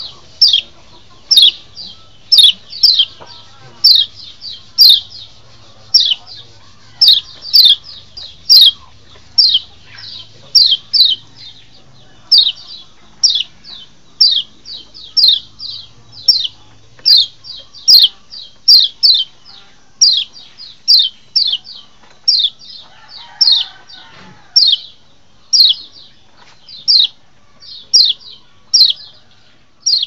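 Kecial (white-eye) calling: a steady series of short, high chirps that each slide downward, one or two a second and often in pairs.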